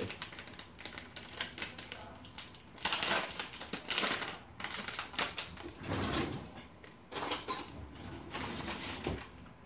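Spice containers being shaken over a frying pan, giving short bursts of rattling, clicking sounds with brief pauses between.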